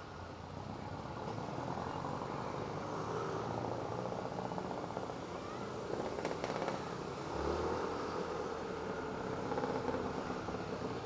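Rusi ADX150 scooter's 150cc liquid-cooled four-valve engine running as it rides along, mixed with road and wind noise, growing a little louder over the first couple of seconds.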